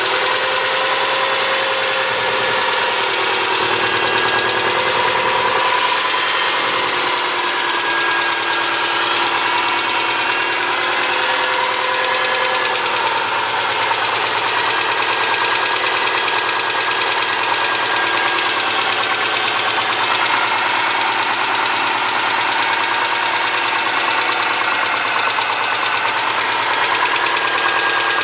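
2003 Subaru Forester's flat-four boxer engine idling steadily, with a ticking from the driver side of the engine. The tick comes from excessive exhaust-valve clearance on the front driver-side cylinder, about .029 in. instead of roughly .010.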